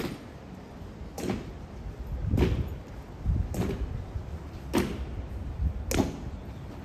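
Honor guards' boots striking the pavement in a slow, measured march: a sharp clack a little over once a second, evenly spaced, each with a low thud.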